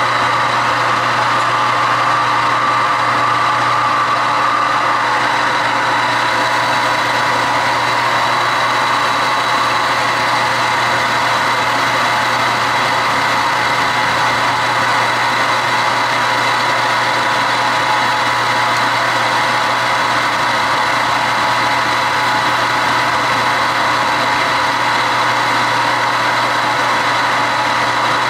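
Metal lathe running steadily, a constant machine hum with a steady whine.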